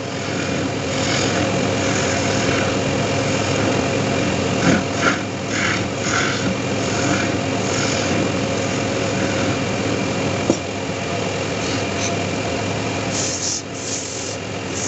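Wood lathe running steadily while a hand-held turning chisel cuts a spinning wooden sofa leg, the tool scraping against the wood in several bursts about five to six seconds in. A single sharp click comes near ten seconds, and near the end the hands work against the turning piece with a brief hiss.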